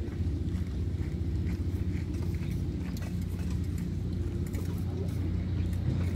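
Steady low machine hum, with faint scattered clicks over it.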